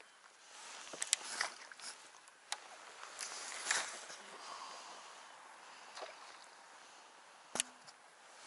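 Fishing tackle handled and cast from a small boat: scattered light clicks and knocks with soft swishes, and one sharp click near the end.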